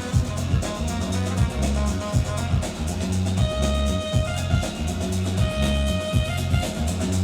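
Instrumental dance music with a heavy, regular drum beat and deep bass.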